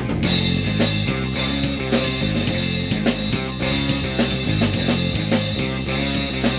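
Instrumental passage of a Brazilian band song: drum kit and guitar playing a steady groove, with the cymbals thickening right at the start.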